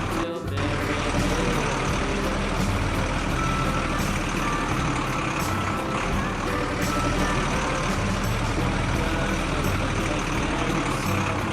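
Heavy truck engine sound running steadily, with short reversing beeps now and then.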